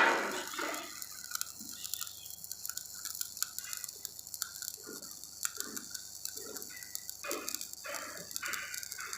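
Electric arc welding crackling steadily, with short, irregular sounds about every half second.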